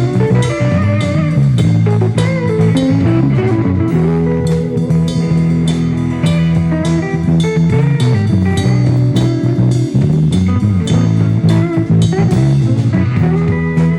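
Live band jamming: electric guitar and bass guitar over a drum kit with a steady beat.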